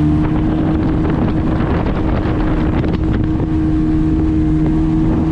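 Jet ski engine running under way with a steady drone, its pitch creeping up slightly, with wind buffeting the microphone.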